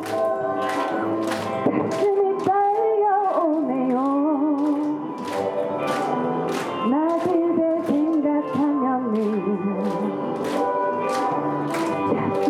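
A solo voice singing a slow love song as a wedding congratulatory song, with held notes and vibrato, over instrumental accompaniment with a steady beat.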